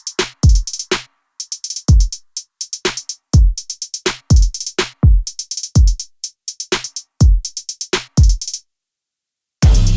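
Electronic background music: a drum-machine beat of deep kick drums that drop in pitch, with quick hi-hat ticks. Near the end the beat stops for about a second, and fuller music with a steady bass comes in.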